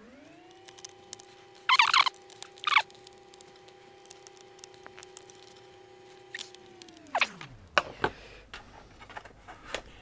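A screwdriver turning the screws that hold a 2.5-inch SSD's metal caddy in a laptop's drive bay, with two short, loud scraping rasps about two and three seconds in and a few sharp clicks later. Underneath, a faint hum rises in pitch at the start, holds, and glides back down about seven and a half seconds in.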